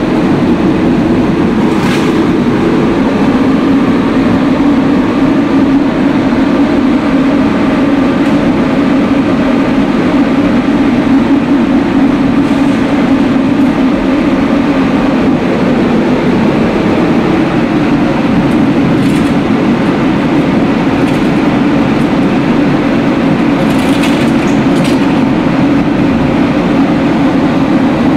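Wood pellet biomass burner running and firing into a boiler: a steady, loud rumble of its blower fan and flame, with a few faint ticks about two seconds in and again near the end.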